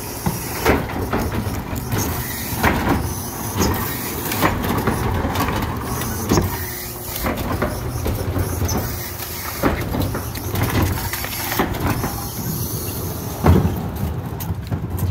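Garbage truck running with a steady engine rumble, over which come repeated knocks and clanks and one loud bang about 13 seconds in.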